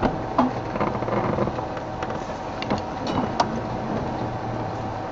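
Open safari game-drive vehicle's engine running steadily at low speed on a rough bush track, with a few knocks and rattles from the vehicle jolting through a dip.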